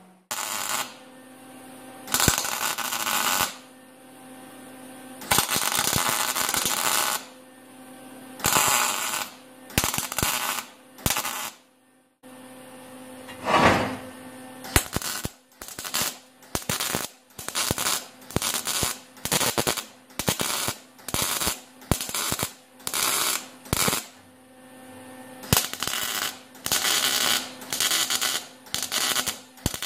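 Wire-feed welder running in bursts on thin sheet steel, joining the patch-panel pieces into one: a few longer welds of one to two seconds over the first dozen seconds, then short stitch welds about once a second.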